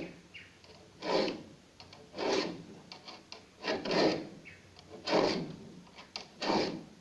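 A cheap hand file rasping across the teeth of a wood hand saw as it is sharpened. Five slow, evenly spaced strokes a little over a second apart, with light ticks between them.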